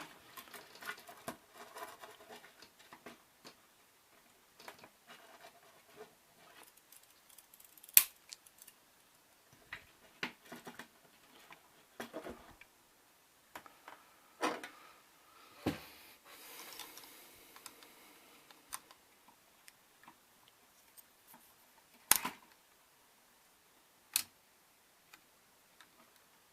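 K'NEX plastic pieces clicking and snapping as connectors and joints of the model are pulled apart and pushed back together, with scattered sharp clicks, a few much louder snaps, and some soft plastic rustling between them.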